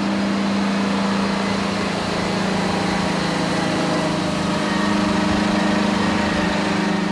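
The Big Bud 747's Detroit Diesel 16V-92 two-stroke V16 diesel running as the giant tractor drives slowly past: a steady drone that swells slightly as it comes alongside about five seconds in.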